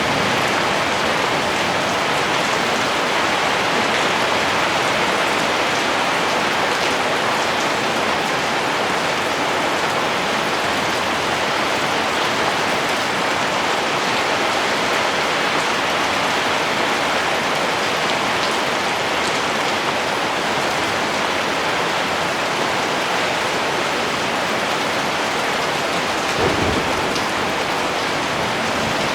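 Heavy rain falling steadily in an even, unbroken patter. About 26 seconds in there is one brief low thud.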